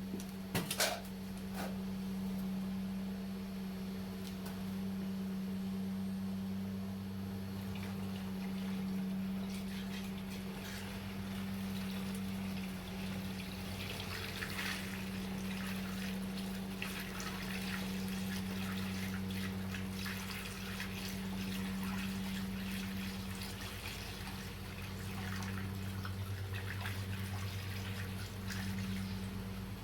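Drained Dexcool coolant being poured into a plastic jug, splashing and trickling, heaviest through the middle, over a steady low hum. A knock about a second in.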